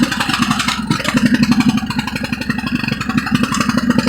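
Riding lawnmower's engine running steadily with fast, even pulses. There is one short click a little under a second in.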